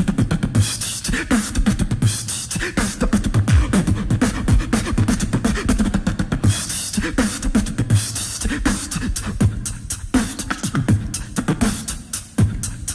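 Live-looped beatboxing: a layered vocal beat built on a loop station, with deep kick and bass sounds in a steady rhythm and a hissing high layer that swells in about a second in and again about halfway through.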